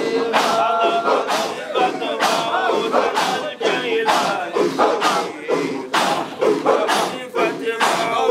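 A crowd of voices chanting together over a regular beat of sharp strikes, about two a second.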